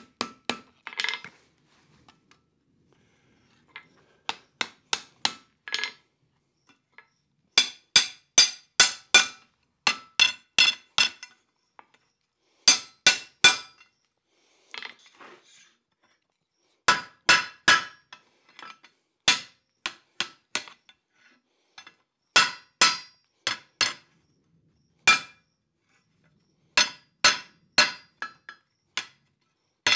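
Blacksmith's hand hammer striking red-hot iron bar on an anvil, each blow with a bright metallic ring. The blows come in quick runs of about three to six, with pauses between the runs.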